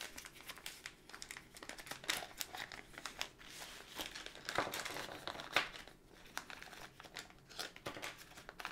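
Frosted plastic tool-kit bag crinkling and rustling in the hands as it is opened and handled, a rapid irregular run of crackles.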